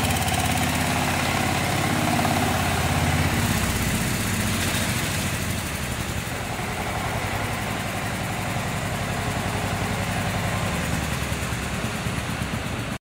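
A mini tractor's engine runs steadily as the tractor drives off with its rotary tiller mounted, growing somewhat quieter as it moves away. The sound cuts off abruptly near the end.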